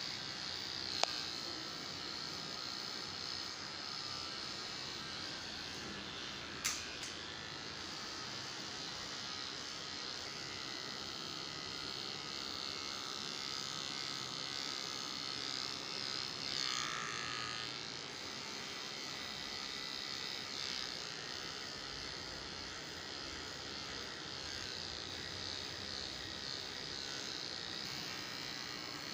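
Small cordless electric pet clipper buzzing steadily as it shaves a Persian cat's long fur. Two sharp clicks, about one second and about seven seconds in.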